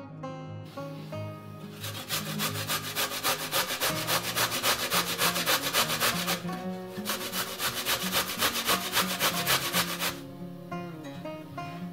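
Zucchini being grated on a stainless-steel box grater: fast, even rasping strokes that start about two seconds in, break off briefly a little past halfway and stop a couple of seconds before the end. Soft acoustic guitar music plays underneath.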